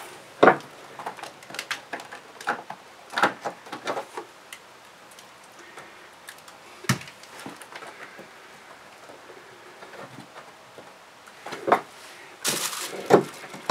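Rotted wood being pried and pulled out of a wooden boat's deck framing by hand and with a screwdriver: scattered cracks, knocks and scraping, with a longer scraping burst near the end.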